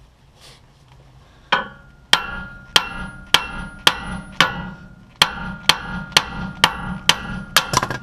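A big hammer striking a steel bolt on a truck's steering stabilizer mount to drive it out, about fifteen ringing metal-on-metal blows at roughly two a second. The blows start about a second and a half in, pause briefly near the middle, and come quicker near the end.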